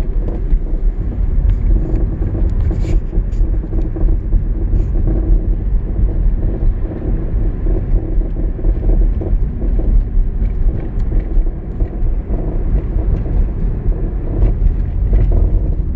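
2011 Hyundai Elantra driving over bumpy road: a steady low rumble with scattered short knocks from the car as it goes over bumps. The owner finds the noise very distinct and suspects a rotor issue or worn struts.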